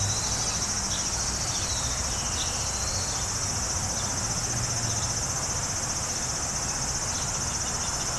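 Steady, high-pitched drone of a cicada chorus, with a few faint short chirps scattered through it.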